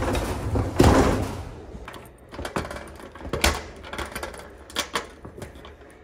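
Metal roll-up storage-unit door pulled down: a rattling roll that ends in a clank about a second in, followed by a run of small clicks and knocks.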